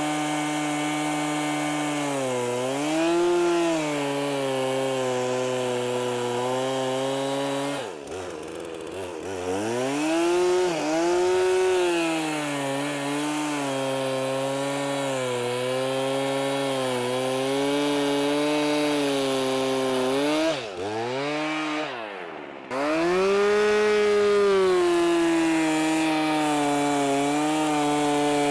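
Chainsaw running near full throttle while cutting through thick pond ice. Its pitch drops sharply twice, about eight seconds in and again near twenty-one seconds, as the throttle is eased, then climbs back to full revs.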